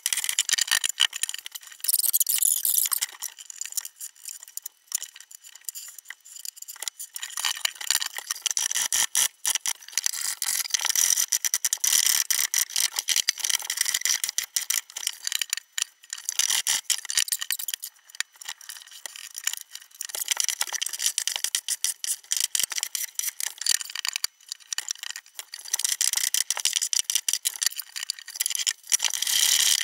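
Hand plane shaving the edge of a small wooden cabinet door: repeated bursts of high scraping, each a second or more long, with short pauses between strokes.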